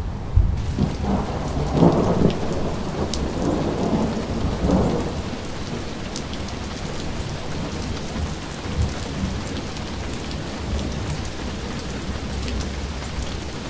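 Steady rain hiss with a low rolling rumble of thunder in the first few seconds. The rain carries on evenly after the thunder and fades away at the end.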